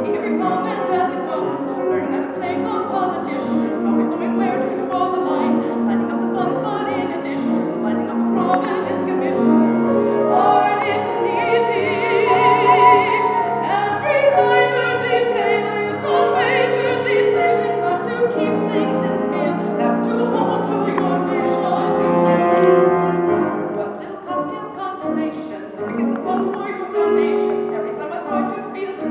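A woman singing a show tune in a full, operatic voice with grand piano accompaniment, including a long held note with vibrato near the middle.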